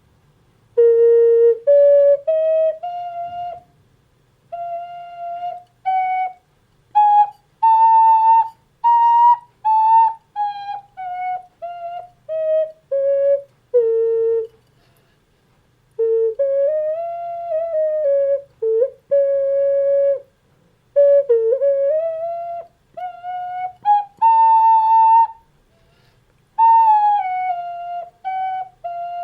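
Ceramic ocarina playing a slow solo melody, one clear note at a time, with pitch slides and bends between some notes and short pauses between phrases.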